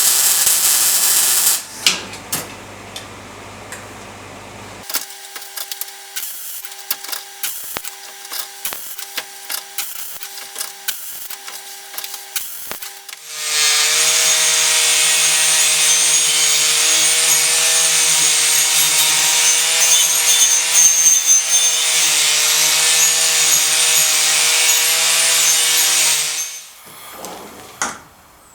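A power tool running steadily on steel for about thirteen seconds in the second half, then stopping. Before it come a brief loud hiss, a low machine hum, and scattered clicks with a tone that switches on and off.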